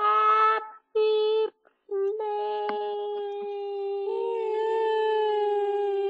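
A girl's voice holding steady notes: two short notes with gaps between, then one long held note that steps up slightly in pitch about four seconds in.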